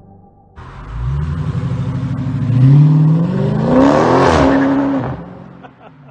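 Dodge Charger accelerating hard away from a standstill, its engine note climbing steeply in pitch. The sound is loudest about three to four seconds in, then falls away quickly as the car pulls off into the distance.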